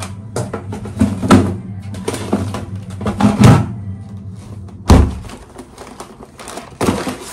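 A cardboard box being handled: knocks, scrapes and cardboard rustling, with a loud thunk about five seconds in.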